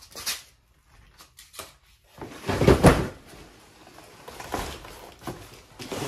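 Flat-pack desk parts and cardboard packaging being handled: a string of scrapes, rustles and knocks, the loudest a second-long scrape and knock about halfway through.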